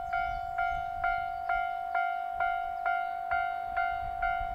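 Japanese level-crossing warning bell ringing in an even, steady rhythm of about two dings a second, sounding for an approaching train.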